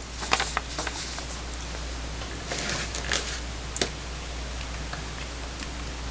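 Handling noise as a handheld ultrasound scanner is lifted out of its foam-lined aluminium carrying case and set down on a table: several light knocks and clicks in the first second, a rustle midway and one more knock a little later. A steady low hum runs underneath.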